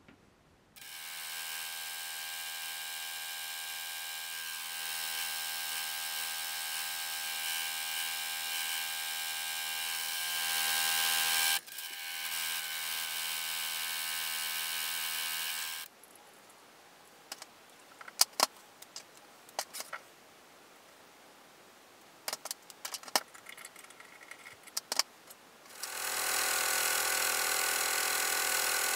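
Milling machine running as a drill bit and then an end mill cut a small aluminium bar held in a vise: a steady motor and spindle whine, broken by a stretch of scattered light clicks and knocks, then the machine starts again with a lower hum about three seconds before the end.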